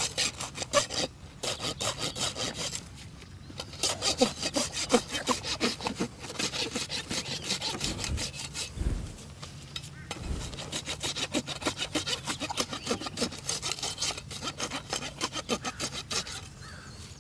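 Steel hoof rasp filing the hoof wall of a Belgian draft horse's standing foot in rapid back-and-forth scraping strokes, with short pauses about a second in and again around three seconds in. The rasp is taking down the flared, separated outer wall so it no longer bears on the ground.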